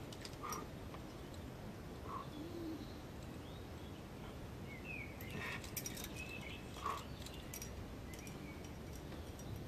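Scattered short bird chirps and calls over a steady low rumble of wind, with a few faint sharp clicks in the second half.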